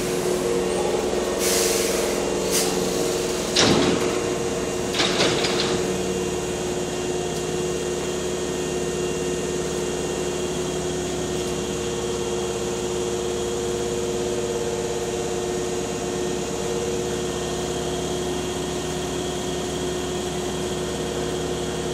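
Hankyu electric train standing at the platform with its doors open, its onboard equipment humming steadily. A few short hisses and a sharp knock about four seconds in are heard in the first six seconds.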